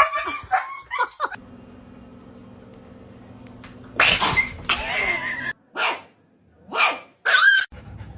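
A dog barking in several short bursts, starting about four seconds in, after a stretch of quiet steady hum.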